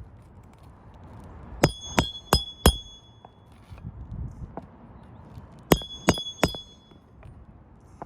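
Hammer driving roofing nails through shingles: two sets of four quick ringing blows, one nail after the other.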